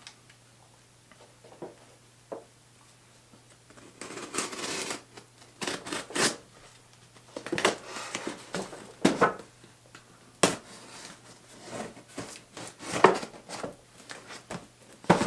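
A box cutter slicing through packing tape and cardboard on a shipping box, with rasping scrapes and rustles of the cardboard and a few sharp knocks. The first few seconds are quiet apart from faint clicks.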